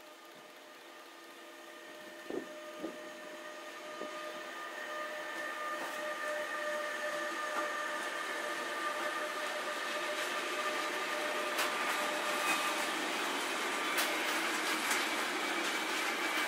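Freight train hauled by a Crossrail Bombardier TRAXX electric locomotive approaching and passing, growing steadily louder. A steady whine with several pitches goes with the locomotive; two short knocks come about two seconds in. From about two-thirds of the way through, the intermodal wagons rumble past with wheels clicking over the rail joints.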